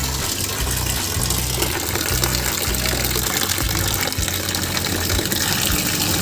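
Water running or spraying steadily in a strong, hissing stream, with background music underneath.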